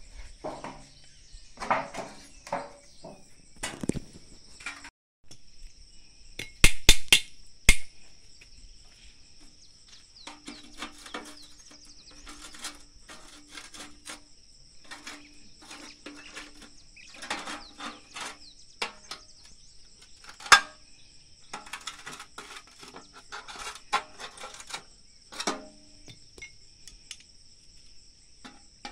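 Insects trilling steadily, over irregular knocks and clatter from gutter-fitting work. The loudest is a quick run of sharp knocks about seven seconds in, with a single sharp knock about twenty seconds in.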